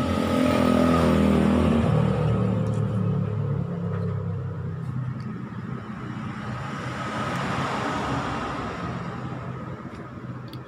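Motor vehicle engine running close by, loudest in the first two seconds, then dropping in pitch and fading, followed by a second wash of passing-vehicle noise that swells and dies away.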